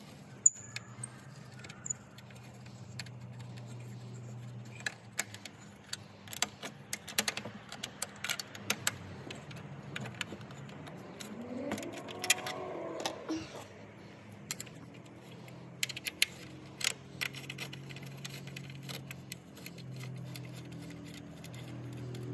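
Irregular metallic clicks and clinks from an Allen key working steel bolts fitted with anodized fender washers, as they are turned and handled, over a low steady hum.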